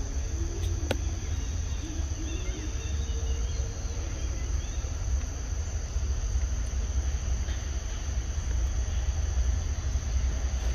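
Insects droning steadily at one high pitch, over a low, unsteady rumble.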